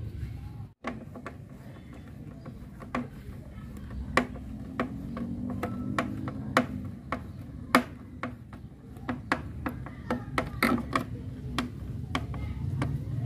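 Irregular clicks and taps of hard plastic and small metal parts being handled: bolts, plastic wing knobs and a screwdriver against a plastic tricycle wheel hub and mudguard as they are fitted together.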